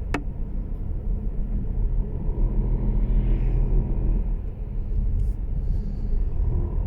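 Mercedes-Benz E-Class All-Terrain on the move: a steady low rumble, with one sharp click right at the start, the rattle the owner is trying to find.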